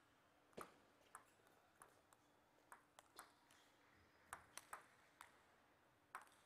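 Table tennis ball being struck back and forth in a rally: about a dozen sharp, short clicks of the ball off the bats and the table, in uneven quick pairs and singles, the loudest about half a second in.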